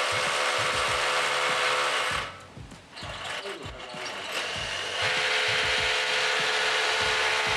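Bosch 18V cordless rotary hammer drilling into concrete. It runs for about two seconds and stops, then drills again from about five seconds in.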